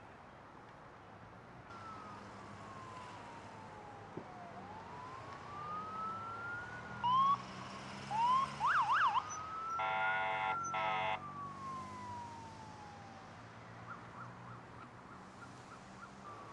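Emergency vehicle sirens wailing, the pitch rising and falling slowly, with a few short whoops and a fast warble midway. Two short horn blasts follow about ten seconds in.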